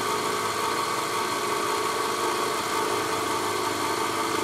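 Milling machine spindle running steadily with a 1/8-inch ball end mill taking a slow, light cut across a lathe compound screw shaft: a continuous even hum and whine with no breaks.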